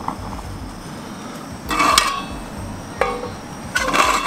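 A spatula knocking and scraping against a stainless frying pan as a lump of butter is tapped off into it, on a propane camp stove whose burner is running. There are two louder clatters, about two seconds in and near the end, and a short ringing knock between them.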